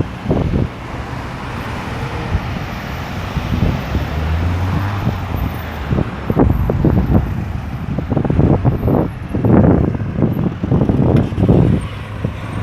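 Road traffic at a busy roundabout: cars and heavier vehicles driving past, engines running and tyres on the road. An engine's hum stands out from about four to six seconds in.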